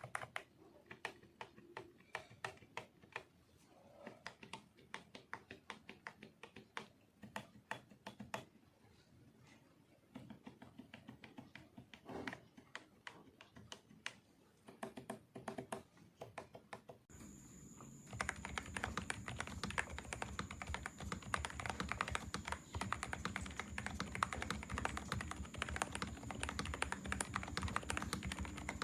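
LongWind WS mechanical keyboard switches being typed on. For the first part the keystrokes come as scattered separate clacks; about two-thirds of the way through they turn into continuous fast typing, louder and over a steady background hiss.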